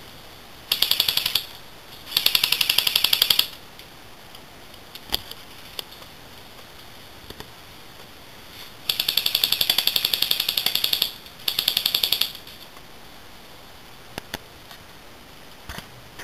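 Airsoft gun firing on full auto in four bursts of rapid clicking shots, two short and two longer, with a few single clicks near the end.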